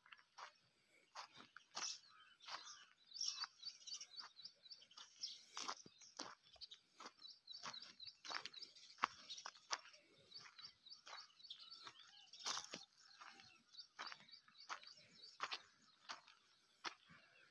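Faint birds chirping, many short high notes, with frequent soft crunches and clicks of footsteps on dry soil and crop trash.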